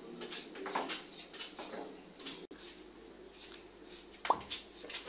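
A knife scraping the peel off cassava roots in a few short strokes, then a quieter stretch with one sharp knock about four seconds in.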